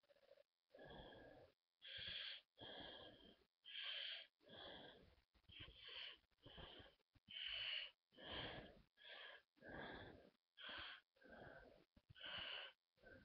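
Faint pen strokes on paper: short scratchy strokes, one after another about once every second or less, as lines are drawn and small leaves filled in.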